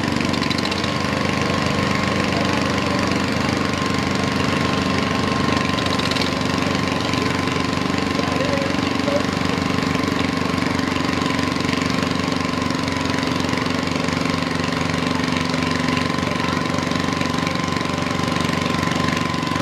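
Small garden tractor engine idling steadily, with a thin steady whine on top.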